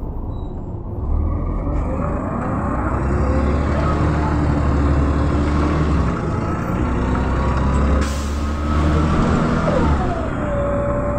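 Mercedes-Benz O405 city bus's diesel engine heard from inside the bus as it pulls along, its note rising as it accelerates, with a hiss of released compressed air from the bus's air system about eight seconds in.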